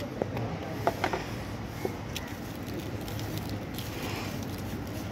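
Steady street background rumble, with a few light clicks and taps about a second in and again near two seconds.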